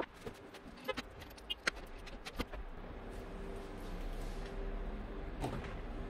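Metal clicks and clinks from the clamps and fittings of a vacuum pump's inlet flange being handled and taken off. A low, steady hum comes up about halfway through.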